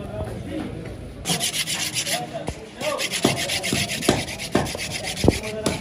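A knife blade scraping a scalded trotter against a wooden block in quick repeated strokes, cleaning the skin. The scraping gets louder about a second in, with a few light knocks among the strokes.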